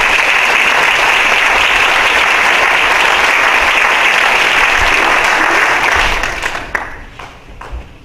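Congregation applauding, dense and steady, then dying away about six seconds in with a few last scattered claps.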